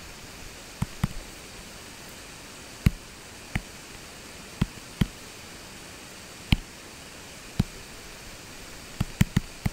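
Short, sharp taps of a stylus on a tablet screen during handwriting, about a dozen at uneven intervals with a quick cluster near the end, over a steady faint hiss.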